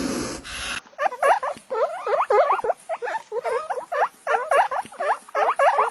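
A short stretch of hiss cuts off under a second in. Then comes a rapid run of short, squeaky animal calls, several a second, rising and falling in pitch.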